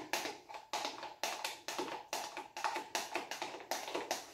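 A small plastic cup dabbed again and again onto a canvas wet with acrylic paint, making rapid light taps about four a second.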